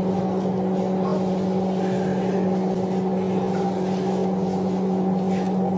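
Steady machine hum with a constant low tone and fainter overtones, unchanging throughout, with faint light knocks over it.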